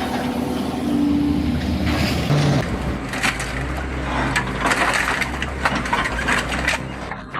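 Hydraulic press crushing a scrap vehicle: an engine runs steadily, then from about three seconds in the metal body crunches and crackles under the press.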